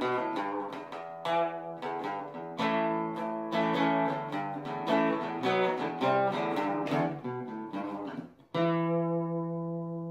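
Background music: an acoustic guitar picking a melody note by note, then striking a final chord about 8.5 seconds in and letting it ring out.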